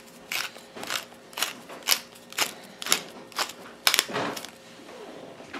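Wooden pepper mill grinding black peppercorns, a short grinding burst with each twist of the head, about two a second, dying away near the end.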